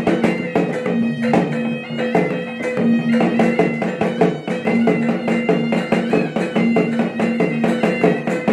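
Traditional Indonesian gendang music: a small shawm with a flared bell plays a melody of long held notes over two double-headed gendang drums, one struck with a stick and one with the hands, in a fast, dense rhythm.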